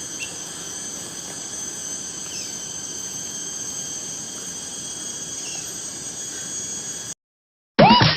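Steady high-pitched insect drone with a few faint chirps, typical of crickets in forest. It cuts off abruptly about seven seconds in, and music begins just before the end.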